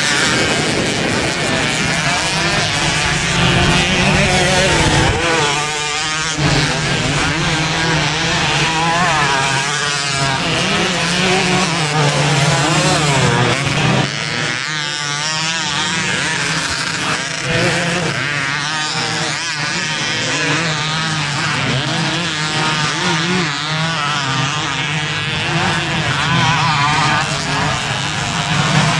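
Motocross bikes racing on a dirt track, their engines revving hard with the pitch rising and falling as riders work the throttle through the corners and jumps.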